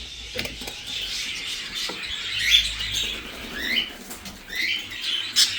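Budgerigars chirping: several short sliding chirps over steady chatter, with a few light clicks.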